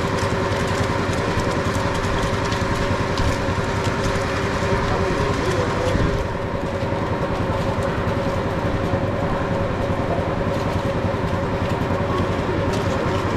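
An engine running steadily, with a constant hum and a low rumble.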